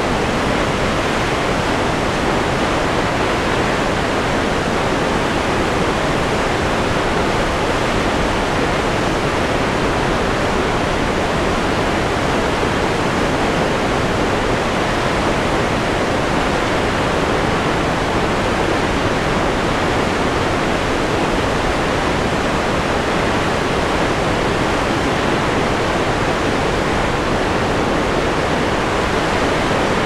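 A big waterfall rushing steadily, an even, unchanging wash of water noise that is almost white noise.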